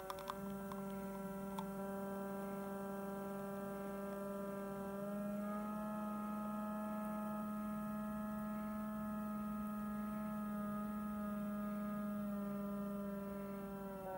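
La Marzocco Strada EP espresso machine's gear pump running during an espresso extraction, a steady hum of several pitched tones whose pitch steps up slightly about five seconds in.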